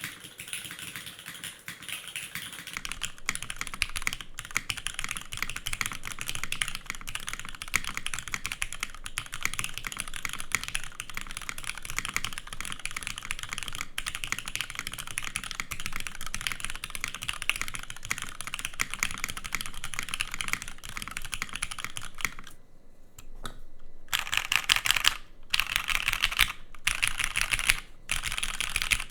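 Typing on a Merisi Works 500C/M custom mechanical keyboard with lubed, filmed Cherry MX2A Nixie switches on a carbon fiber plate, with OG Cherry NCR dye-sub keycaps. Fast, unbroken typing stops briefly about 23 seconds in, then resumes in short bursts with brief gaps.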